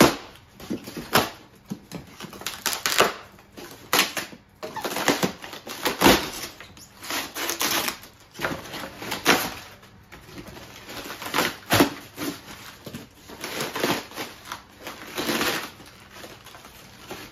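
Hardened spray-foam packing and its cardboard shell being broken and pried apart by hand, with irregular crunching, cracking and scraping and the rustle of plastic wrap, and a few sharper cracks along the way.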